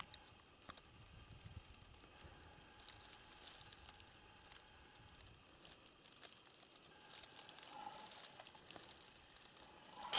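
Near silence: a faint outdoor hiss with a few soft scattered ticks and rustles.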